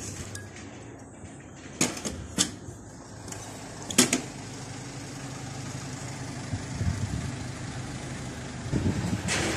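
A few sharp metallic knocks and clinks, three in the first half and a cluster near the end, from hand tools and loose parts being handled on an engine under repair. A steady low hum runs underneath.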